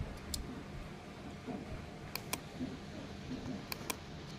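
Quiet room tone with a few faint, sharp clicks.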